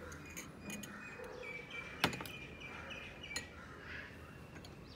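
Faint bird chirps, with a few light clicks and one sharper tap about two seconds in, from a metal spoon against a glass bowl.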